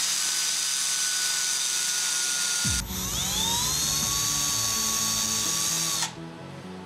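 Handheld power drill boring small holes in an MDF board. The motor whine runs steady, cuts out a little under halfway, spins up again with a rising whine, and stops near the end.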